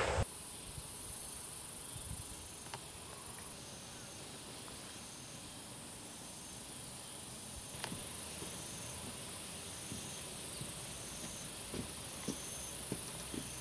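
Insects chirping outdoors: a steady high buzz with short high chirps repeating about once a second, and a few faint scattered ticks.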